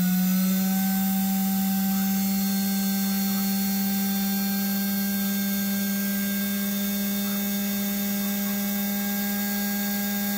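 Montgomery Ward sewing machine's electric motor running at a steady speed with a steady hum, just up to speed, driving a belt that spins a bobbin to wind thread onto it.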